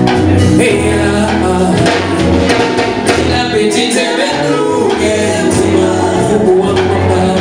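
Live band music: a lead singer and backing vocalists singing together over a bass line. The bass drops out briefly near the middle.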